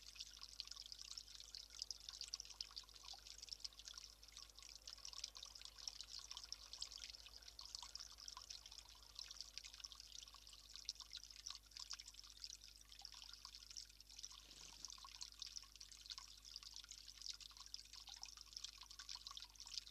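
Faint, steady trickle of water running into a small stone basin, a fine crackly splashing with no break.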